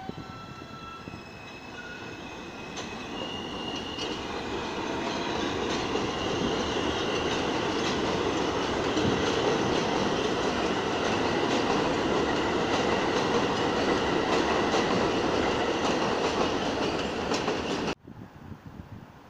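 New York City subway train of stainless-steel cars pulling out of the station and picking up speed: a high motor whine stepping up in pitch over the first few seconds, then a growing rumble of wheels on rail with rapid clicking over the joints. It cuts off suddenly near the end.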